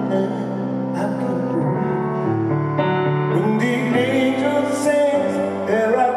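A band playing live, amplified, with held chords. A sung vocal melody comes in about three and a half seconds in.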